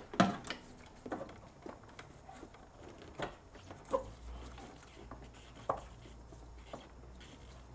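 Scattered light clicks and knocks as gloved hands handle parts around a car's brake master cylinder and booster, about six separate taps, with a faint low hum coming in about halfway.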